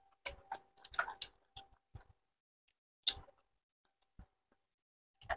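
Close-up eating sounds of chicken feet being chewed and sucked off the fingers: quick wet clicks and smacks, a dense run in the first two seconds, one loud smack about three seconds in, and a few more near the end.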